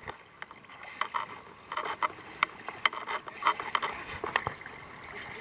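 River water splashing around a raft, with irregular sharp knocks and taps several times a second.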